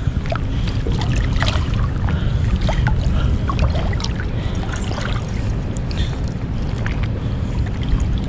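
Water sloshing and small scattered splashes as a horse-eye jack is held by the tail in the water and swished to revive it before release, over a steady low rumble.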